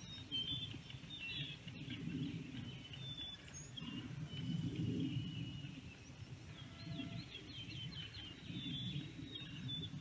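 Songbirds chirping and singing in many short calls, with a quick run of repeated notes about seven seconds in, over a low, uneven rumble.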